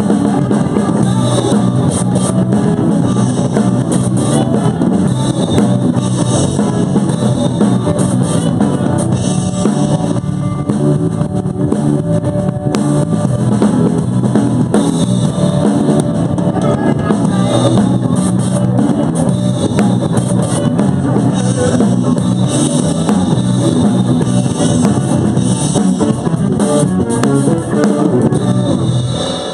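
Live rock band playing an instrumental passage: a Stratocaster-style electric guitar strummed over a drum kit, with a saxophone.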